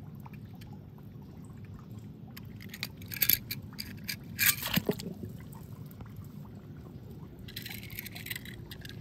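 Small toy cars being handled and set down on a rough concrete pool edge: a scatter of light clicks and knocks in the middle, then a brief scraping hiss near the end as a toy is pushed over the gritty surface.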